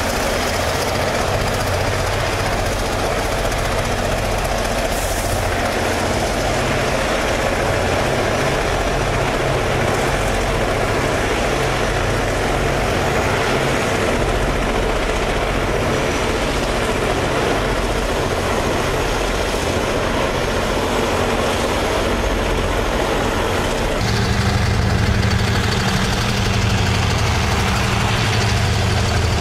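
Freight train cars rolling steadily over a level crossing, a continuous rumble of wheels on rail. About 24 seconds in, a diesel engine's drone grows louder and stronger in the low end as a mid-train distributed-power locomotive draws near.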